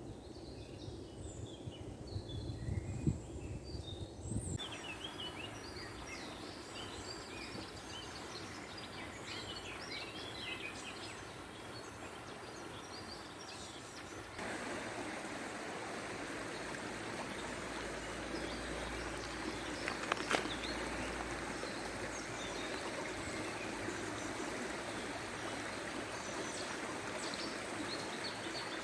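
Small birds chirping and twittering over the steady rush of a flowing stream. The water suddenly becomes louder about halfway through, and there are a few low thumps in the first few seconds.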